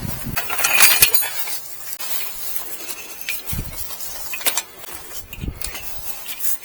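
Clinking and rustling of the unboxed pop-up greenhouse kit being handled. It is loudest about a second in and is followed by scattered small clicks.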